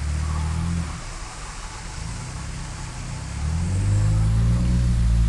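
Car engine running while driving slowly, with a low steady hum that rises in pitch and grows louder about three and a half seconds in as it speeds up.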